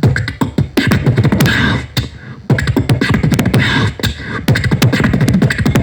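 Vocal percussion (beatboxing): a fast run of mouth-made clicks and kick-drum-like thumps, sped up after a slower start, with a short break about two seconds in.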